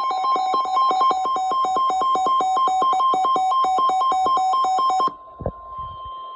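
Weather radio warning alarm: rapid beeping, about eight beeps a second, alternating between a higher and a lower pitch over the steady 1050 Hz warning alarm tone of NOAA Weather Radio. The beeping cuts off sharply about five seconds in, leaving the plain tone faint, with a single click.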